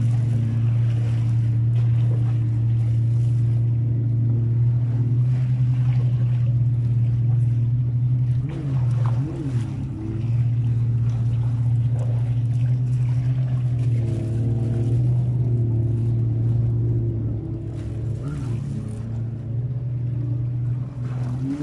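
A steady low motor hum, a little quieter near the end.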